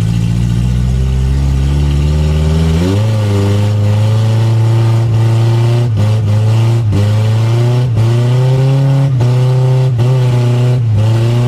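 Chevrolet Chevette's four-cylinder engine heard from inside the cabin, running at low revs, then revving up about three seconds in. It then rises and dips roughly once a second as the throttle comes on and off.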